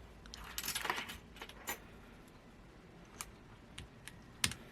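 Scattered sharp plastic clicks, with a short rattling cluster about half a second in, from a mechanical keyboard and its keycaps being handled after a switch is shown.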